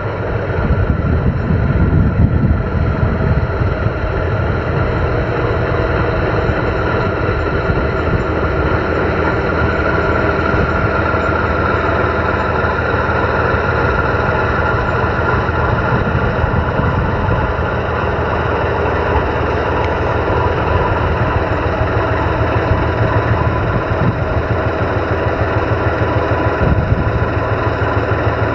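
Diesel engine of a 1999 Freightliner FLD120 tandem-axle dump truck idling steadily.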